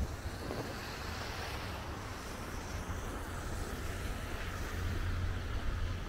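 Steady city street noise of passing traffic, with wind buffeting the microphone. A low engine hum comes up about five seconds in.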